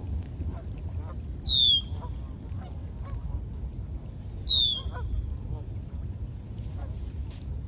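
Canada geese calling from the water: two loud, high calls about three seconds apart, each sliding down in pitch and then levelling off, with softer short calls from the flock between them.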